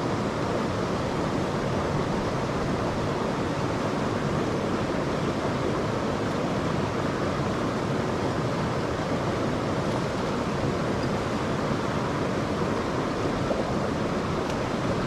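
Steady rush of a small mountain river's flowing water, an even hiss with no breaks.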